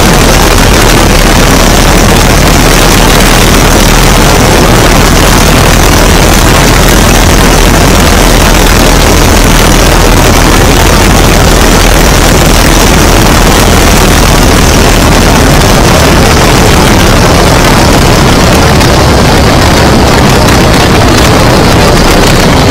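Great Lakes biplane's piston engine and propeller running steadily, heard as a loud, unbroken rush mixed with heavy wind blast over the exposed microphone as the plane descends to the runway.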